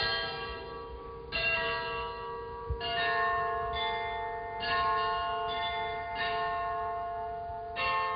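Church bells ringing: several bells struck one after another, about once a second, their tones ringing on and overlapping.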